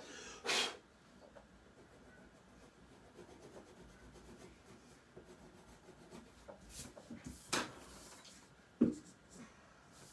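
Pencil rubbing and scratching across drawing paper in shading strokes, with two louder scrapes, one about half a second in and one about three-quarters of the way through. A soft thump comes near the end.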